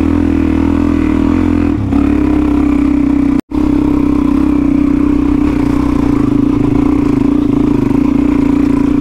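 Dirt bike engine running steadily, its tone shifting slightly just before two seconds in, with a brief complete dropout of the sound about three and a half seconds in.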